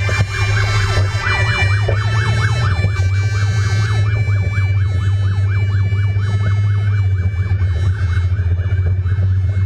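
Fire engine sirens yelping in rapid repeated rising sweeps, over a steady low rumble.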